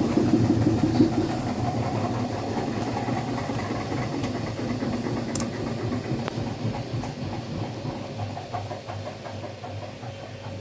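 Samsung washing machine running, a steady mechanical rumble from the turning drum that gradually gets quieter, with a few faint clicks.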